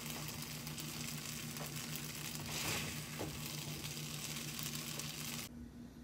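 Stir-fried noodles sizzling in a nonstick frying pan as they are stirred with a wooden spoon, over a steady low hum. The sizzle cuts off suddenly near the end.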